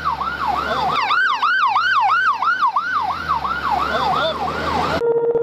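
Emergency vehicle siren in a fast yelp: rapid falling pitch sweeps, about three a second, over a low rumble. It cuts off abruptly near the end.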